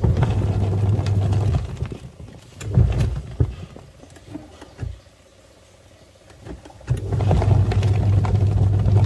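Twin-tub washing machine's wash motor humming as it churns water, stopping after about a second and a half, with a few knocks in the pause, then starting up again about seven seconds in.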